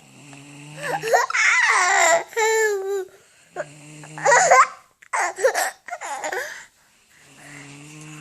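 High-pitched babbling and squealing vocalisations in several loud bursts, with the pitch sliding up and down. Between the bursts a low, steady snore can be heard: at the start, about three and a half seconds in, and again near the end.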